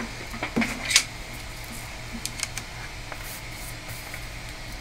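A few sharp clicks and knocks of a laptop and its power adapter being handled, the loudest about a second in, followed by small ticks over a steady low room hum.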